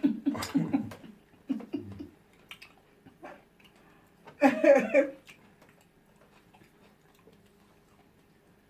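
A person's voice in short bursts, the loudest a brief outburst about halfway through, then faint clicks of eating with utensils and mouth.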